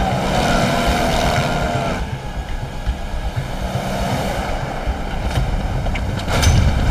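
Small outboard motorboats speeding over choppy water: a steady engine drone mixed with the rush of waves, spray and wind. A few sharp cracks come near the end.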